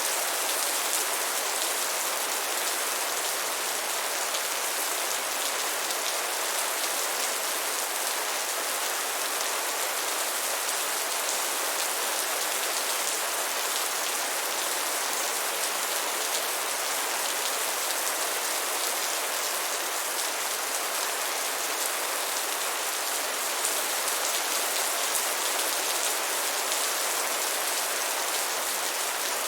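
Steady heavy rain falling on a surface: a dense, even hiss of many drops that does not change in strength.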